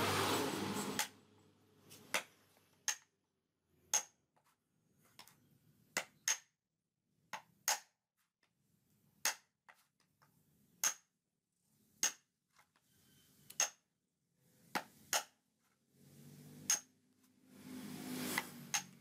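Hammer tapping a metal chisel set into the opening of a husked coconut, chipping out the white flesh: sharp metallic taps, each with a brief ring, about one a second at an uneven pace.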